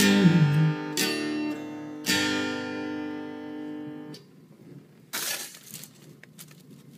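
Acoustic guitar's closing strums: the last sung note slides down and ends at the very start, then two chords strummed about a second apart ring out and are damped about four seconds in, ending the song. A brief rustle and a few light clicks follow.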